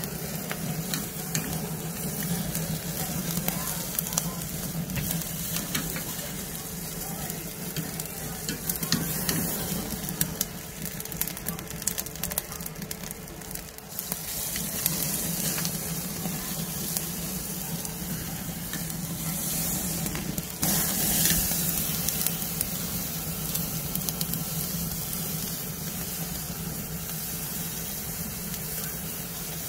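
Picanha (beef rump cap) sizzling on a ceramic kamado grill over burning charcoal, with a dense crackle of fat and fire; the hiss swells louder for a moment about two-thirds of the way through. A steady low hum runs underneath.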